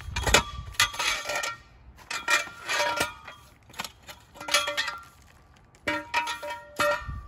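Steel rebar clanking and ringing as a metal pipe is slipped over the upright bars and used to lever them straight. Repeated sharp metallic clanks and clinks, each with a short ringing tone.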